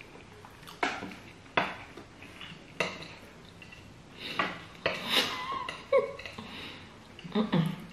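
Metal cutlery clinking and scraping on ceramic plates of beans and fried plantain: three sharp clinks in the first three seconds, then busier scraping from about four seconds in.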